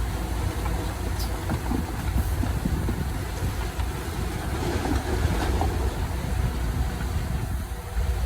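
Heavy earthmoving machinery engine running steadily at a low rumble, with scattered knocks and clanks.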